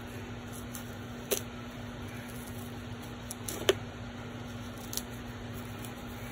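A few sharp clicks and knocks from a cardboard shipping box being worked open with a letter opener, the loudest a little past the middle, over a steady low hum.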